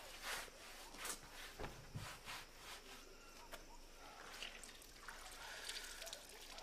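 Faint wet scrubbing as a stain is scrubbed out with water: several short strokes in the first three seconds, then softer rubbing and dripping water.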